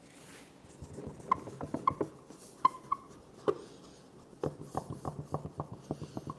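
A run of small, sharp, irregular clicks and taps, some with a short ringing tone.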